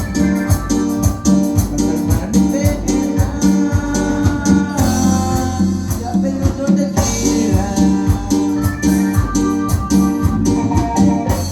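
Cumbia music played by a band, with a steady percussion beat that drops out for about two seconds near the middle.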